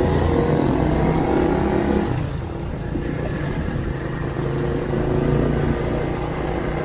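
Motorcycle engine running under way, with a steady hum that eases off about two seconds in.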